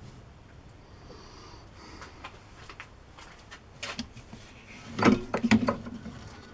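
Knocks and clatter of objects being handled: scattered light clicks, then a burst of several sharp knocks about five seconds in.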